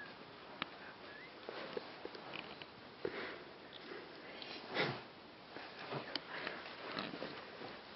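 A person sniffing quietly, with faint rustling and small clicks around, and one louder sniff or breath about five seconds in.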